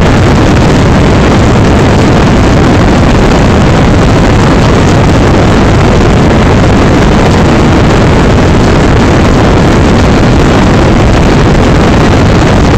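Torrential rain drumming on a moving car's roof and windshield together with tyre hiss on the flooded road, heard from inside the cabin as a loud, steady noise.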